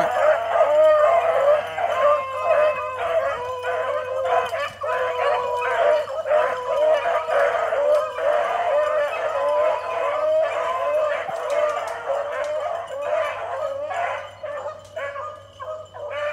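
A pack of beagles baying without a break, several voices overlapping, as they run a rabbit's scent trail; the cry thins and dips a little near the end.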